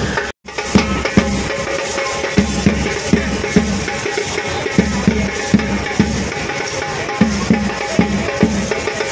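Loud procession music with a steady, rhythmic drum beat, mixed with the sharp metallic clatter of lezim jingles shaken by dancers in time. The sound cuts out briefly for a fraction of a second near the start.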